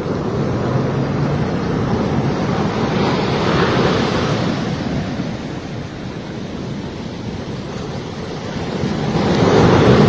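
Storm-driven surf: heavy waves breaking and washing up over a flooded beach in a continuous rush. A big wave crashes near the end, the loudest moment.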